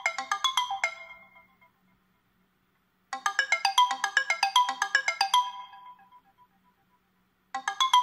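A built-in Sony Xperia 10 III ringtone playing through the phone's loudspeaker: a quick run of bright, chiming notes lasting about two seconds that fades, pauses about a second, and then loops, starting again about three seconds in and again near the end.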